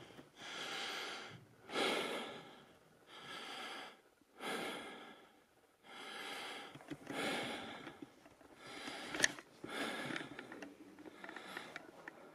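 A person breathing in and out close to the microphone, a breath roughly every second and a quarter, with a single sharp click about nine seconds in.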